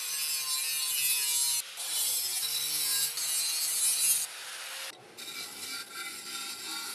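Angle grinder with a cutoff wheel cutting through a stainless steel pipe: a loud, high grinding hiss with a short break about a second and a half in, stopping at about four seconds. From about five seconds the cut pipe end is held against a running disc sander and ground more quietly.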